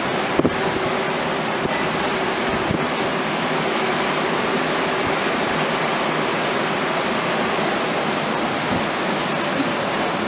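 Heavy, storm-driven surf breaking along the shore, heard as a steady, even rush of noise with no single waves standing out. A brief knock comes about half a second in.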